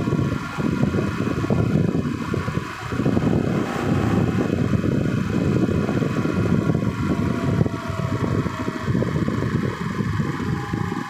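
A vehicle under way: a dense low noise that swells and dips, with faint steady tones above it.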